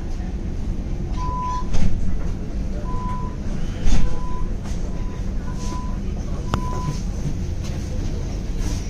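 Steady low rumble of a tram and street traffic, with short electronic beeps at one pitch repeating irregularly, roughly every second. Two louder knocks about two and four seconds in, and a sharp click near the end.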